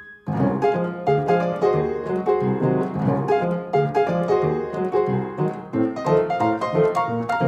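Background instrumental music with quick, evenly spaced notes. It breaks off briefly just after the start, then carries on.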